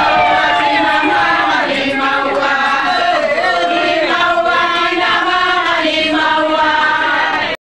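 A group of women singing together in chorus. The singing cuts off suddenly near the end.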